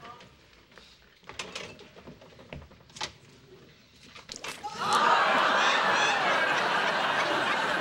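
Studio audience laughing, starting about five seconds in and holding steady. Before it, a few soft clicks and knocks in near quiet.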